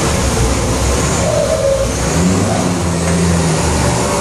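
Volkswagen 210 bus's turbo-diesel engine accelerating, its turbocharger whistling, the whistle made louder by a 'pente' insert fitted to the turbo. A high whistle rises about a second in over the steady engine noise.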